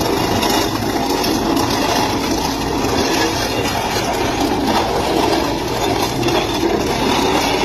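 Heavy machinery running steadily, with a continuous rumbling clatter.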